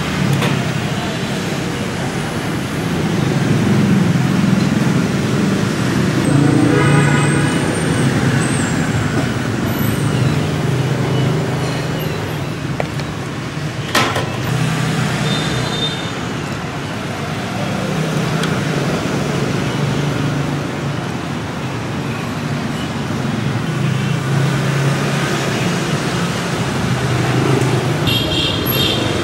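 Street traffic noise from passing motorbikes and cars: a steady, continuous engine hum, with a single sharp click about halfway through.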